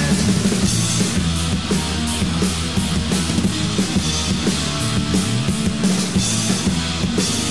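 Loud punk/thrash-metal band recording: distorted electric guitar, bass and a drum kit with regular cymbal and drum hits, playing without singing.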